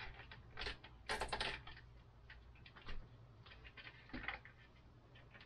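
Scattered light clicks and taps of hands working on bicycle parts, with a quick run of rattling clicks about a second in, over a faint steady hum.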